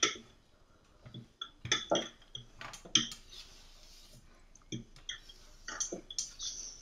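Scattered light knocks and clicks of a wooden rolling pin and a palette knife against a wooden tabletop while shortcrust dough is rolled out and the pin is set down, with a short scrape near the end.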